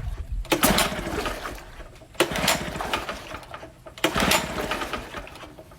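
Small gasoline engine being pull-started three times on its recoil starter, about one and a half seconds per pull, turning over rapidly without catching. This is a first start attempt after a cylinder-head rebuild, with choke and fresh gas.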